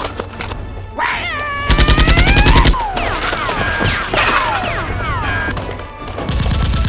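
Rapid machine-gun-style gunfire sound effects: a burst of about a second starting nearly two seconds in, and a shorter burst near the end. Sliding whistle-like tones run over and after the first burst, with background music throughout.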